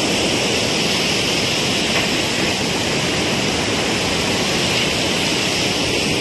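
Steady rushing of a shallow, rocky river: white-water rapids running over stones.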